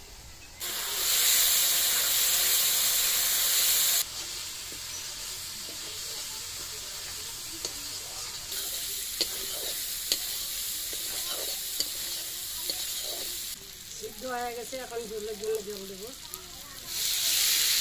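Spiced taro (gati kochu) pieces frying in oil in an iron kadai. A loud sizzle rises for a few seconds as the lid comes off, then a lower frying hiss runs under the clicks and scrapes of a metal spatula stirring. The loud sizzle returns near the end.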